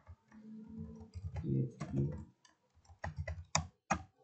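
Computer keyboard keystrokes: a handful of separate sharp clicks, the loudest two near the end. A low hum sounds under the first half.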